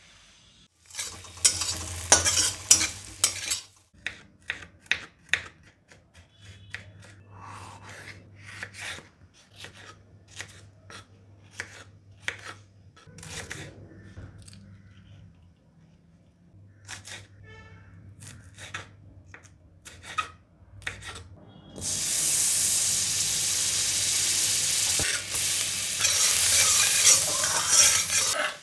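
A kitchen knife knocking on a bamboo cutting board in irregular sharp strokes while onion and capsicum are cut, after a brief clatter near the start. Near the end, hot oil with chopped garlic starts sizzling steadily in a wok.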